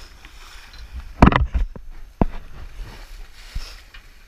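Sea water sloshing against a rocky cliff base over a low rumble, with a cluster of sharp knocks about a second in and another just past the middle.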